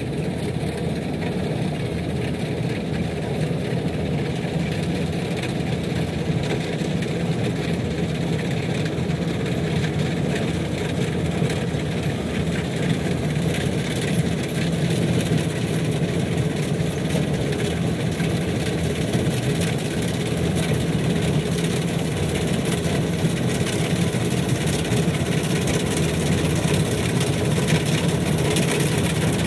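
Kubota DC-93 combine harvester's diesel engine running steadily under harvesting load, growing slightly louder as the machine comes closer.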